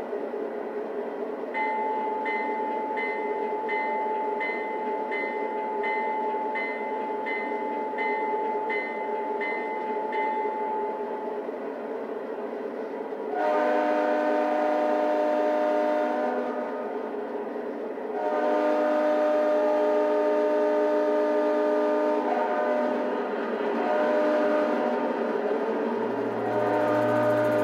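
Sound system of an LGB G-scale Amtrak Genesis model diesel locomotive: the diesel engine idles under everything while the bell rings at about two strikes a second for the first ten seconds. After a short pause the multi-chime horn sounds in several blasts, the first two long.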